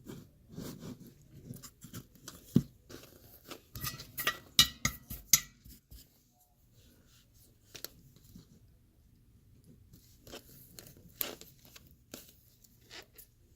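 Small handling sounds at a workbench: rustling and scraping, then a quick cluster of sharp clicks and taps about four to five seconds in, followed by a few isolated clicks.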